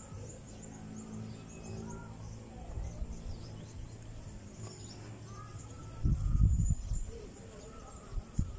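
Small birds chirping faintly over a steady outdoor background. About six seconds in there is a short, loud low rumble, and a brief one near the end.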